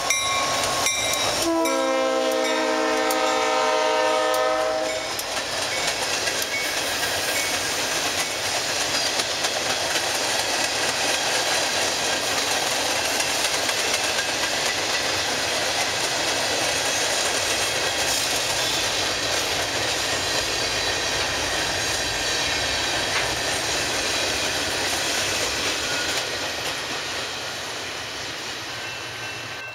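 A diesel freight locomotive's air horn sounds one long blast of about three and a half seconds as it passes close by. The freight cars then go by with a steady rumble and wheel clatter, which starts to fade near the end.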